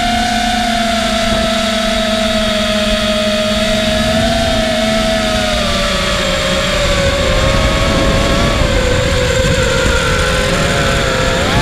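FPV quadcopter's brushless motors and propellers whining, heard from the onboard GoPro, the pitch sliding slowly down as throttle eases and then dipping and rising sharply near the end. Steady wind rush on the microphone underneath.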